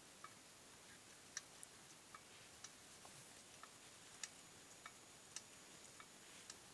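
Removed right front strut (shock absorber) of a Lada Granta clicking: about a dozen faint, sharp clicks at uneven intervals, roughly one or two a second. The click is the strut's fault, which pumping the shock absorber has not cured.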